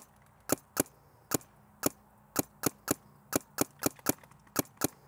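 Planet Eclipse Emek 100 paintball marker firing a rapid string of shots, about sixteen sharp pops at two to four a second with uneven spacing.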